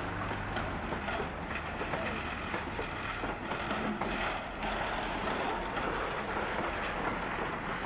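Wagons-Lits passenger coaches rolling slowly past on the rails, their wheels giving irregular clicks and knocks over the rail joints above a low rumble.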